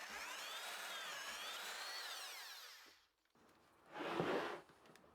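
SDS drill with an 18 mm auger bit boring dowel holes in oak, its motor whine rising and falling in pitch, then winding down and stopping just under three seconds in. About a second later comes a short scraping rustle, the loudest sound here.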